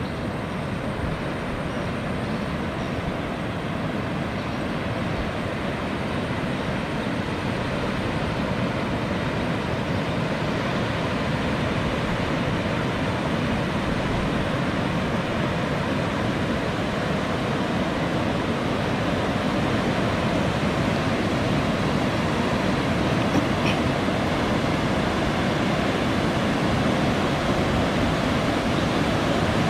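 Rushing roar of a breaking wave front surging up a river, steady and slowly growing louder.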